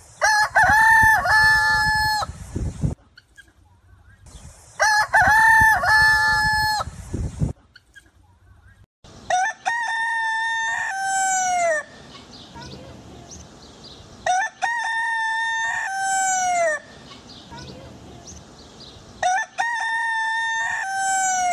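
Free-range village rooster (ayam kampung) crowing repeatedly: five crows about five seconds apart. The first two are louder and closer, and the last three end on a falling note.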